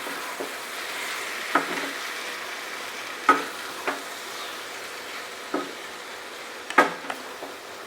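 Chicken pieces frying in masala gravy in a pan, sizzling steadily, while being stirred with a utensil that knocks sharply against the pan every second or two.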